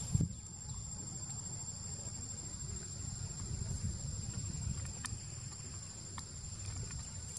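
Steady high-pitched shrilling of insects over a constant low rumble, with a soft bump just after the start and two faint ticks later on.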